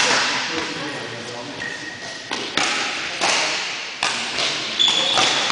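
Badminton play in a large, echoing sports hall: several sharp racket strikes on a shuttlecock, each ringing out in the hall, with shoes squeaking briefly on the court floor and voices in the background.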